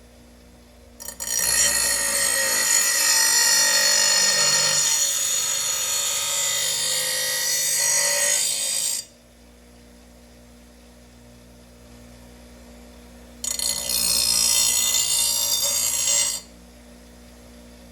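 Power grinder grinding the edge of a steel lawn mower blade to sharpen it: two passes, a long one of about eight seconds and a shorter one of about three, each starting and stopping abruptly.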